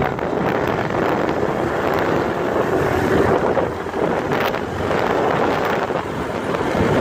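Wind rushing over the microphone of a moving motorcycle, with the motorcycle's running noise underneath at a fairly steady level.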